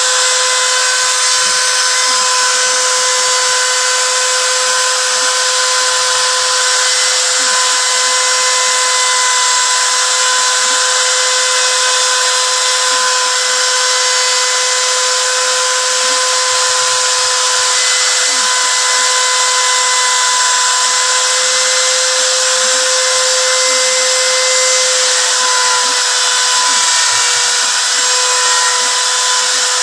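CNC router spindle running steadily while engraving, a constant whine over a loud hiss.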